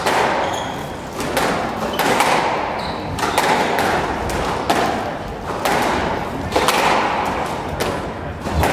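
A squash rally: the ball cracks off the rackets and thuds off the court walls, sharp knocks coming about every half second to second in a large echoing court.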